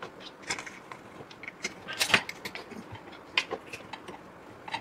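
A plastic 3D-printed motor mount and a stepper motor being handled on a wooden bench as bolts are fitted: irregular small clicks and knocks, with the loudest clatter about two seconds in.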